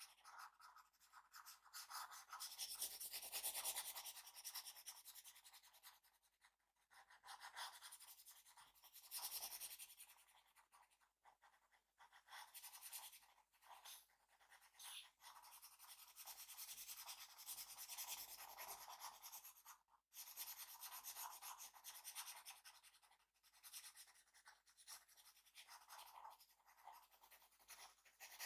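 Faint scratching of a drawing tool on paper, in uneven strokes with brief pauses between them.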